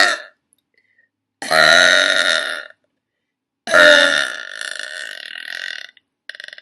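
A woman burping loudly three times: a short burp right at the start, another about a second and a half in, and a long drawn-out burp from about four seconds in that trails off. A quick flutter of small clicks follows just before the end.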